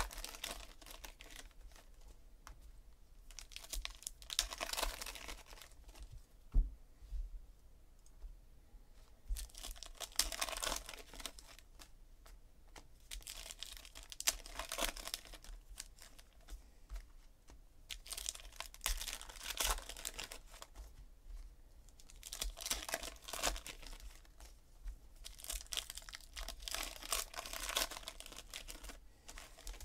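Foil trading-card pack wrappers being torn open and crinkled, in bursts of crackling every few seconds, with cards handled and shuffled between.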